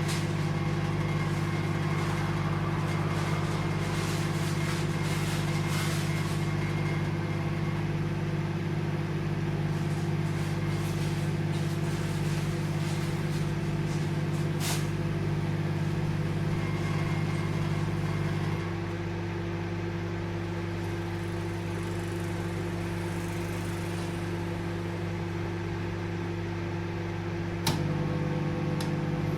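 Microwave oven running with a steady low hum. About two-thirds of the way through, the deeper hum drops out while a lighter running sound carries on; near the end a sharp relay click brings the full hum back. This is the magnetron cycling off and on, as at a reduced power setting.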